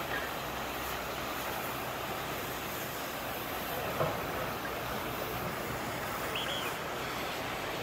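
Steady rushing noise of surf breaking on the shore, with a low steady rumble underneath and a brief knock about four seconds in.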